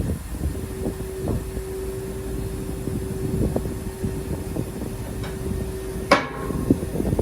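Heavy machinery running, with a steady whine held for most of the time. A single sharp metal clang rings out about six seconds in.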